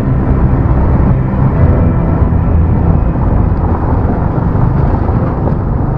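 Motorcycle underway at speed: steady, heavy wind rush on the rider's mic, with the engine running under it.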